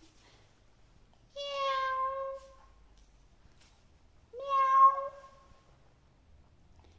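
A woman imitating a cat: two drawn-out meows about three seconds apart, each about a second long and held on an even pitch, the second starting with a short upward slide and louder.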